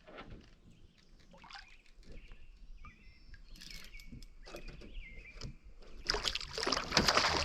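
Faint bird calls over a quiet lake, then about six seconds in a loud burst of splashing, dripping and knocking as freshly caught brook trout are handled in the canoe.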